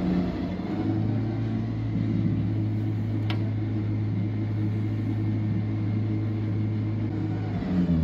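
Rayco stump grinder's engine running at a steady pitch, without the loud grinding of the cutter wheel. A single faint click comes about three seconds in, and near the end the engine note wavers and changes pitch.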